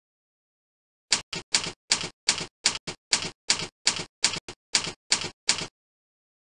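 Ticking sound effect: about fifteen short, sharp ticks at roughly three a second, starting about a second in and stopping abruptly, with dead silence around them.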